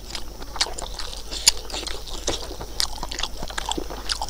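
A man chewing a mouthful of rice and buffalo innards curry close to the microphone, with many short, wet clicks from lips and tongue.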